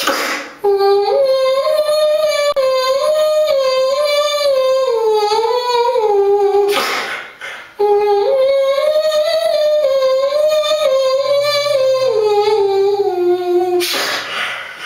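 Beatboxer producing a hummed, instrument-like melody through a hand cupped over the mouth, in two long wavering phrases that each sink in pitch at their end. A short breathy burst separates the phrases, and another comes near the end; the small tiled room adds echo.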